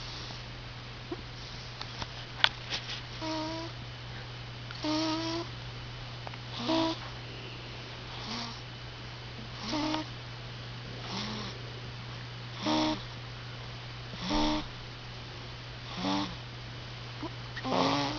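A one-month-old baby snoring in sleep: short, pitched snores about every second and a half, ten in all, after a few sharp clicks about two seconds in. A steady low hum runs underneath.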